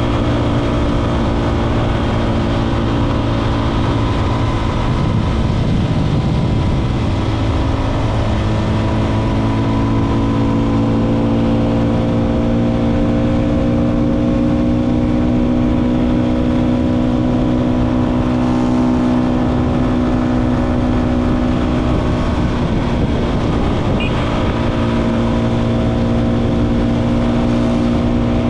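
Motorcycle engine running at steady road speed. Its pitch climbs gently a third of the way through and dips briefly near the end, over a constant low wind rush.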